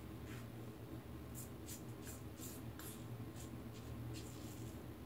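Rockwell 6C safety razor on plate 4, with a new Rockwell blade, scraping through lathered stubble on the neck in a quick series of short, scratchy strokes.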